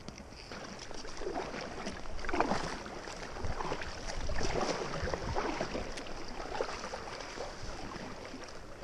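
Double-bladed paddle strokes swishing and splashing in calm river water from a packraft, in uneven strokes with the loudest about two and a half and four and a half seconds in.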